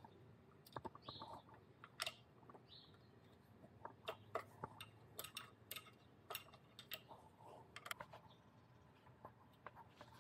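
Quiet, irregular clicks and taps of small metal parts: a hex key, bolts and washers being handled and fitted at an electric scooter's rear brake caliper.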